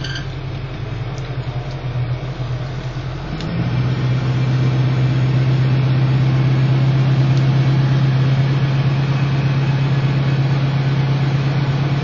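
Pickup truck engine running steadily as the dual-rear-wheel 4x4 pickup moves slowly. It grows louder about three and a half seconds in and stays level after that.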